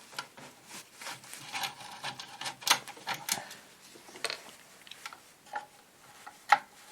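Irregular small clicks, taps and metallic knocks of a metal cover panel being unscrewed and lifted off an old power supply's case, with a sharper knock near the end.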